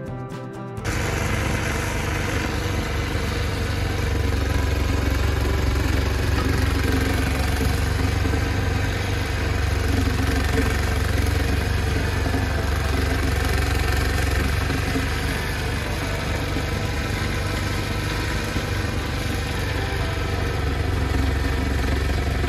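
A small engine starts being heard about a second in and runs steadily for the rest of the time, swelling a little in level from about four to ten seconds in.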